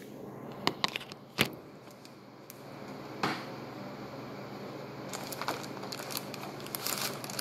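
Handling noise: scattered sharp clicks, taps and brief rustles, as of things being moved close to the microphone, over a low steady hum.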